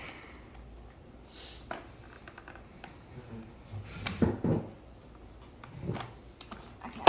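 Gifts being unwrapped and handled: scattered light rustles and knocks, with a few louder knocks past the middle.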